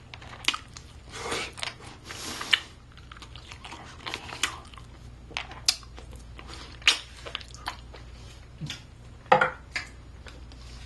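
A person chewing and biting into baked chicken, with irregular short clicks and crunches; the loudest comes about nine seconds in.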